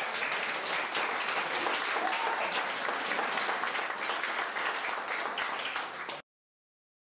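Audience applauding, many hands clapping at a steady level, cut off suddenly about six seconds in.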